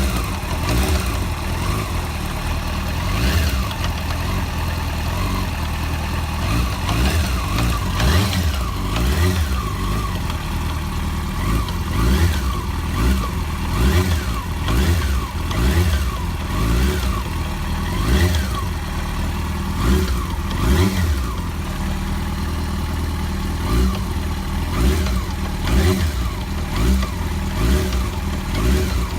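Yamaha FZ6 S inline-four engine idling and being blipped again and again on the throttle, each blip a quick rise and fall in pitch, coming every second or two in the second half. The sharp throttle openings bring out a knock from the clutch basket, which the owner hears in the gearbox near the front sprocket.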